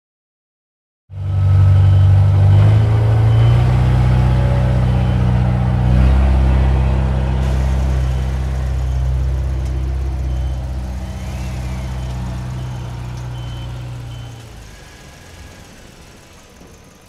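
Truck engine sound effect laid over the toy truck: after a second of silence it starts abruptly, runs as a low steady hum with a couple of shifts in pitch, and fades out over the last few seconds.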